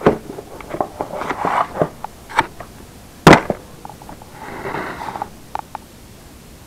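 A black plastic storage box being handled and its lid opened: a run of plastic clicks and knocks, one loud sharp knock about three seconds in, then a brief rustle and a few light clicks.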